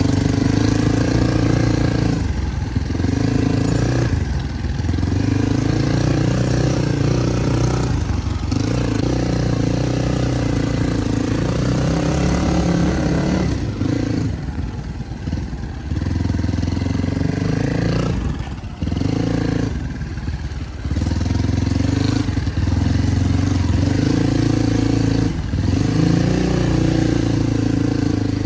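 Motorcycle engine running under way on a rough road, its note dropping away briefly several times as the throttle is eased and picking up again.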